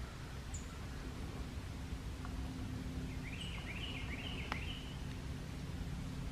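A songbird calling a quick run of four or five chirped notes about three seconds in, with one sharp click partway through, over a steady low background rumble.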